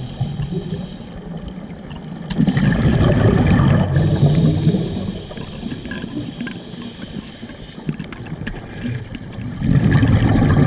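Scuba diver's regulator breathing picked up by an underwater camera: two loud, bubbling exhalations about two seconds long, one a little over two seconds in and one near the end, with quieter hiss between.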